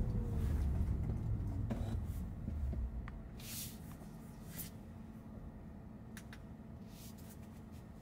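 Low road and tyre rumble inside a Tesla Model Y's cabin, fading as the car slows. A faint whine falls in pitch over the first two seconds, and a few brief hissing swooshes come about halfway through. The cabin is very quiet.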